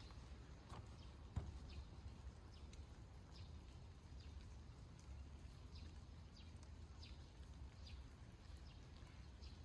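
Near silence outdoors: faint, scattered short high chirps and one soft low thump about a second and a half in.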